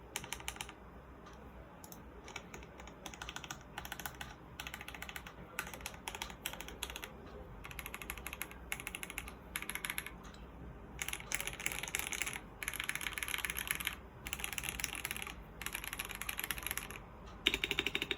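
Typing on a mechanical keyboard fitted with Domikey x iNKY Silent Forest keycaps, as a sound test: quick runs of key clicks broken by short pauses. The typing is lighter at first and becomes denser and louder in the second half.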